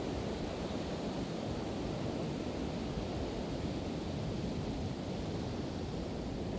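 Pacific Ocean surf washing steadily, with a low rumble of wind on the microphone.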